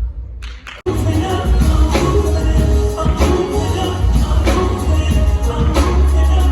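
Pop music with singing and heavy bass. Just under a second in, the music cuts out briefly and a new song starts.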